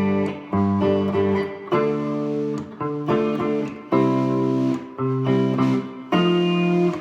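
Handmade Les Paul-style solid-body electric guitar, both pickups on together, played clean through a 5E7 tube amplifier with a little reverb and compression. A series of chords is struck about once a second, each left to ring into the next.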